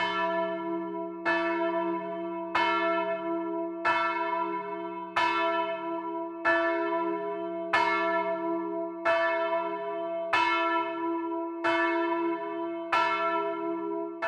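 A single bronze church bell swinging and ringing, its clapper striking evenly about every 1.3 seconds, with the bell's low hum sounding on between strikes.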